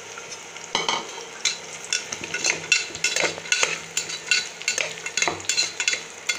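Diced beetroot sautéing in hot oil in a pressure cooker pot, a steady sizzle, then from about a second in a spoon stirring it, scraping and clicking against the pot in quick irregular strokes.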